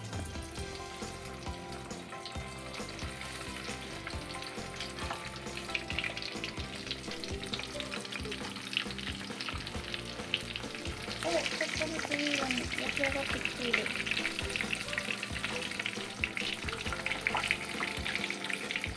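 Breaded, shiso-wrapped Japanese whiting rolls deep-frying in 170 °C oil in a small pot: a steady crackling sizzle that gets louder about eleven seconds in.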